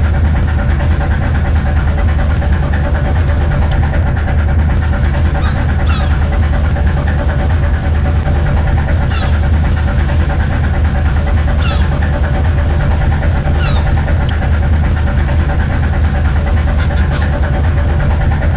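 Fishing boat engine running steadily with a deep, even hum. Short, high bird calls break in now and then.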